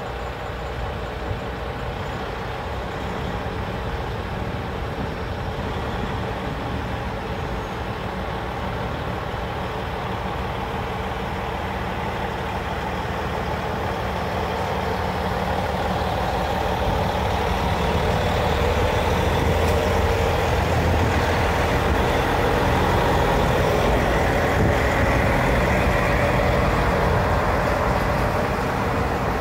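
SU4210 diesel locomotive's engine running and growing steadily louder as it pulls away with a passenger train. Near the end the coaches roll past behind it.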